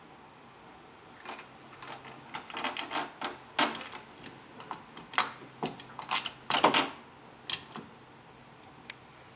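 Irregular clicks and knocks of UPVC door handle hardware being handled and fitted, about a dozen sharp ticks over several seconds, the loudest near the middle.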